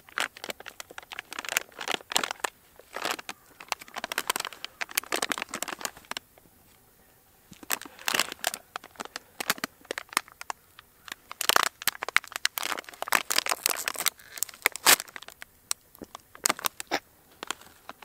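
Plastic snack-chip bag crinkling loudly in irregular bursts as it is handled, with a short pause partway through: the kind of noise that makes it the wrong snack to bring on a hunt.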